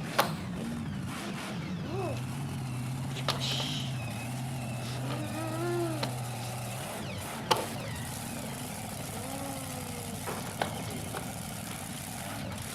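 Engine noises made by mouth: a held low drone and rising-and-falling vroom glides, with a few sharp knocks of plastic toy trucks colliding.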